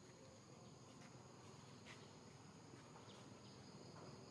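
Near silence with a faint, steady, high-pitched insect drone, such as cicadas or crickets, and a few faint ticks.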